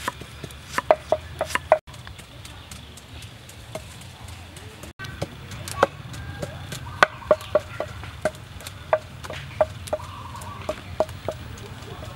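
Knife chopping green banana on a wooden cutting board: a quick series of sharp knocks. After two brief silent gaps, similar knocks go on at an even pace.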